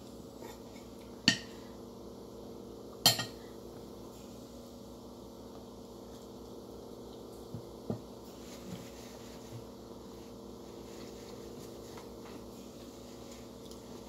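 Metal spoon clinking sharply against a plate twice in the first few seconds, then a few softer taps, over a steady low hum.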